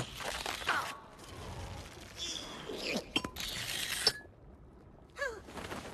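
Cartoon squirrel sound effects from an animated film: short squeaks and yelps that fall in pitch, mixed with a few sharp cracks and crunches. The sound cuts off and restarts abruptly several times.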